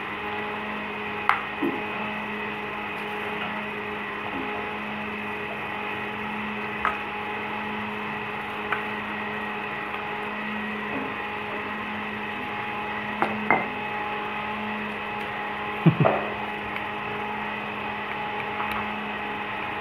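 A red plastic spatula knocking and scraping against a stainless steel bowl as cut fish is stirred through spice paste, in a few scattered sharp clinks, the loudest about three quarters of the way in. A steady electrical hum runs underneath.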